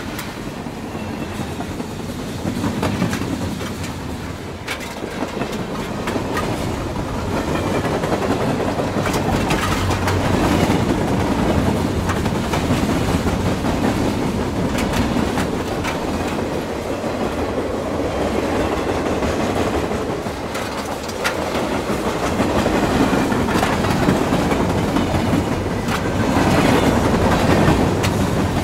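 Model freight train running on a model railway layout, its wagon wheels clicking over the track in a continuous clickety-clack.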